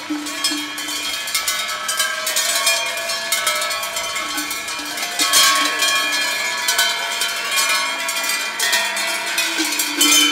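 A marching group of bell-ringers shaking large hand-held cowbells, many bells ringing together in a dense, steady clanging.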